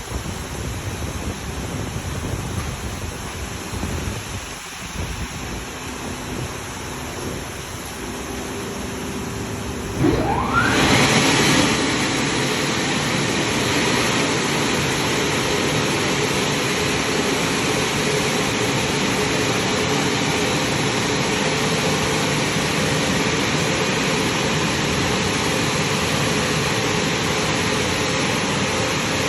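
Automatic car wash machinery rushing steadily. About ten seconds in a powerful blower starts with a whine that rises quickly in pitch, then runs on as a loud, steady rush of air, typical of the drying stage.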